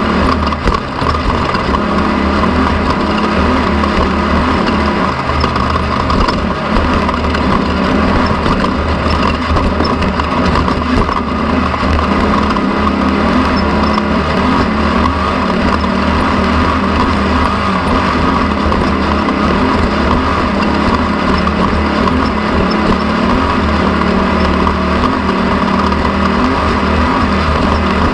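Off-road desert race car's engine running steadily under way, with no letup.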